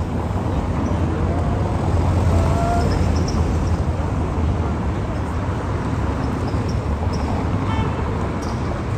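Steady low rumble of vehicle traffic or a moving vehicle, with faint voices in the background.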